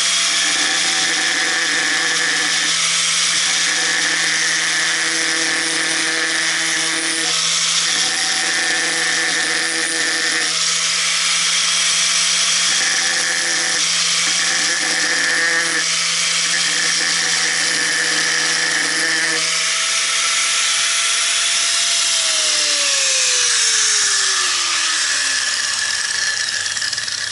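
Electric angle grinder running with its disc pressed against a hard Mejiro nagura stone to cut grooves, the grinding sound coming and going every few seconds as the stone is pushed on and eased off; the very hard stone barely cuts. About 22 seconds in, the grinder is switched off and its whine falls steadily as the disc spins down.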